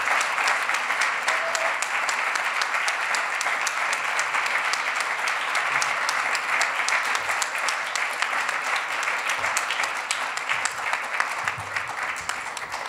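Audience applauding, many hands clapping in a steady dense wash that dies away near the end.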